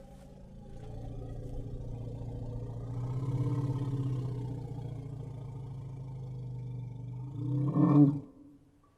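Elephant giving a long, low rumble that swells and fades over several seconds, ending with a short, louder call that rises in pitch near the end and then stops abruptly.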